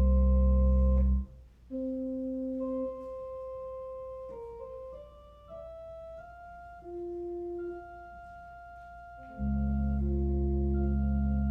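Organ playing slow, sustained music. A full chord over deep pedal bass drops out about a second in, leaving a quieter melody that moves step by step in long held notes, and the deep bass chord returns near the end.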